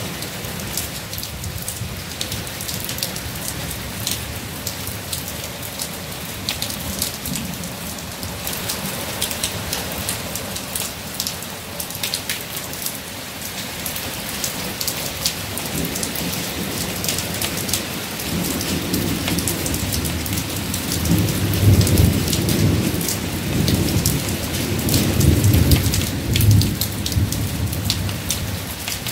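Steady rain falling on wet pavement, with many sharp drop ticks close by. Thunder rumbles in from about halfway through, building to its loudest near the end.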